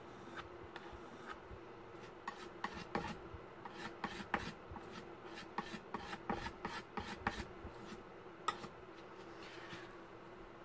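Palette knife scraping and working paint: a quick, uneven run of short rasping strokes, thickest from about two seconds in until near the end, over a faint steady hum.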